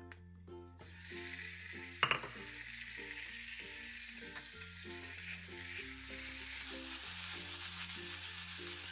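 Diced raw chicken breast dropping into hot oil in a non-stick frying pan and sizzling steadily from about a second in, with one sharp knock about two seconds in.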